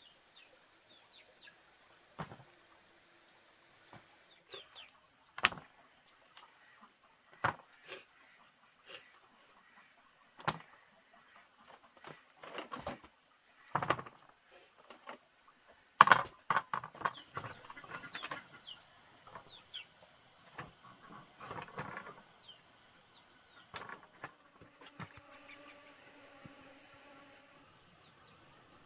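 Irregular sharp knocks and thuds, one every second or few, some followed by short rattling clatter, with the loudest knock about two-thirds of the way through. A steady high-pitched insect drone runs beneath.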